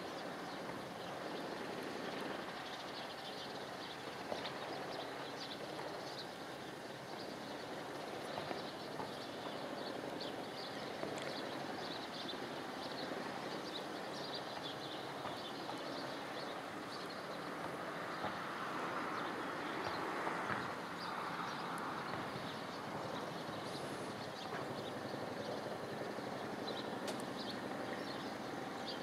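Steady outdoor background noise with faint crackling ticks throughout, swelling slightly about twenty seconds in.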